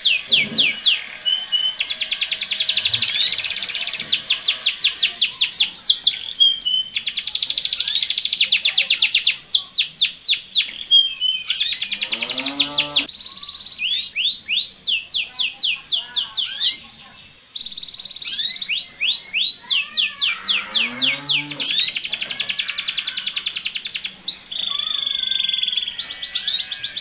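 Domestic canaries in mating song: a male singing long, very fast rolling trills and held notes, high-pitched and near continuous with short breaks, mixed with a female's calls answering him.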